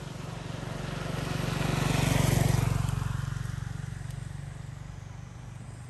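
A motor vehicle drives past on the road, its engine getting louder to a peak a little over two seconds in, then fading away.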